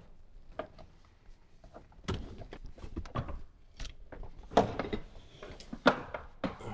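A series of knocks, thuds and short scrapes as an unbolted front seat is lifted and manoeuvred out of a Jeep Wrangler's cabin.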